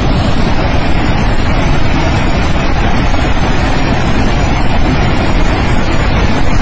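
Loud, steady rush of a river in flood.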